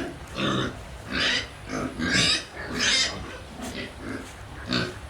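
Pigs calling: a run of about six short squeals and grunts.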